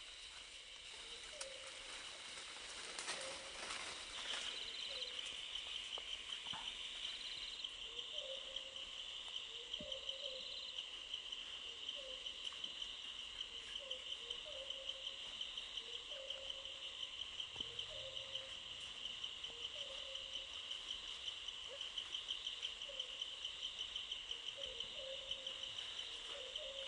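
Forest insects keep up a steady, fast-pulsing high drone that comes in a few seconds in. Under it, a short low call repeats about every second and a half.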